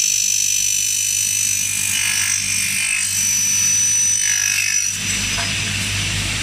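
Double-head aluminium cutting saw running, its two 405 mm blades on 1.5 kW motors spinning with a steady high whine over a low hum; about five seconds in, a rougher, fuller noise joins, as in a blade working through aluminium profile.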